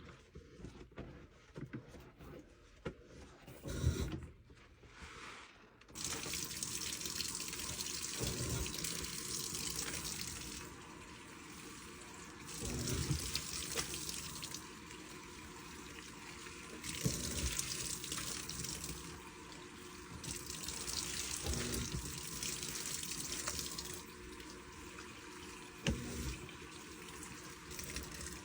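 Washing machine sloshing water loaded with too much detergent: a rushing water sound that starts about six seconds in and swells and falls every few seconds, with low thuds.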